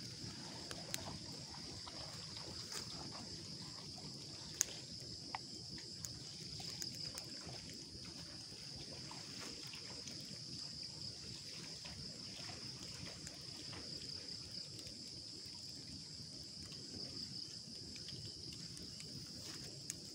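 A steady, high-pitched chorus of crickets over a wood campfire, with a few sharp pops and crackles from the burning wood. The loudest pop comes about four and a half seconds in.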